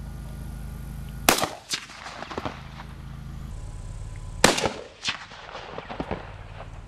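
AK-47 rifle fired twice, single shots about three seconds apart, each a sharp crack followed by a few fainter cracks.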